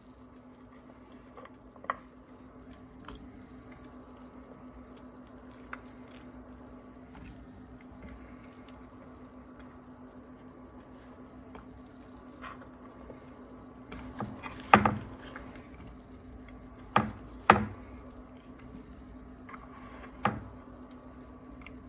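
Kitchen cooking sounds: a steady low hum under soft rustling, with a few light clicks and then several loud, sharp knocks of utensils or cookware in the second half.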